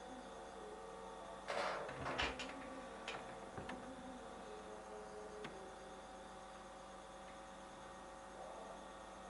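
MSO5204 oscilloscope running with a steady hum of fans and electronics while it boots. A short cluster of clicks and rattles comes about a second and a half in, followed by a few single clicks.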